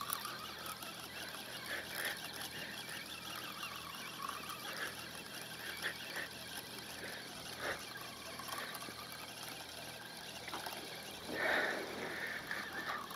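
Fishing reel being wound in steadily as a hooked fish is brought up, faint under a steady outdoor hiss, with a few soft clicks.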